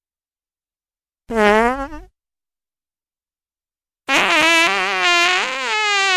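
Comic fart sound effects with dead silence between them: a short, squeaky fart about a second in, then a long, wobbling, pitched fart starting about four seconds in that carries on.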